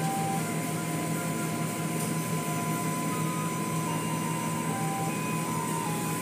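Automatic car wash running over the car, heard from inside the cabin: a steady rush of water spray and wash machinery with a constant low hum.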